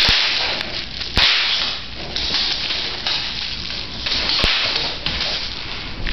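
Plastic bubble wrap crinkling and crackling steadily as it is handled. Three sharp pops come through, at the start, about a second in and past the middle.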